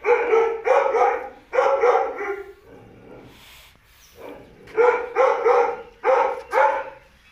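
Calf crying out in short, loud, high-pitched bawls as the hot dehorning iron is applied to its horn buds: a quick run of about four cries, a pause, then about five more.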